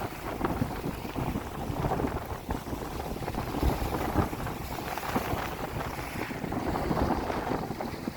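Strong wind blowing across the microphone, a rough, uneven rumble.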